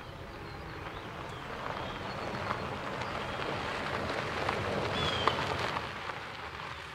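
Car tyres crunching over gravel as an SUV drives across the lot, growing louder to about five seconds in and then fading. Birds chirp briefly a few times.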